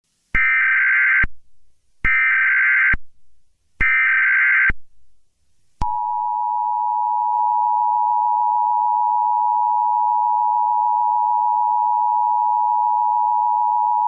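Emergency Alert System tones: three short buzzy data bursts of the SAME header, about a second each, then about six seconds in the long two-tone EAS attention signal starts and holds steady for about eight seconds, the signal that an emergency alert message is about to be read.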